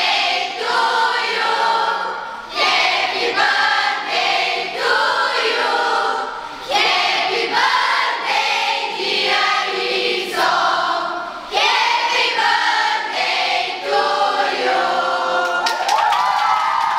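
A large group of children and young people singing together in phrases. Near the end the singing gives way to cheering and clapping.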